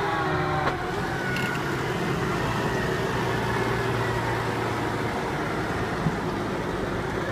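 Case Puma 200 CVX tractor's six-cylinder diesel engine running steadily under heavy load while pulling a three-furrow reversible plough through wet clay soil, the engine working at full effort.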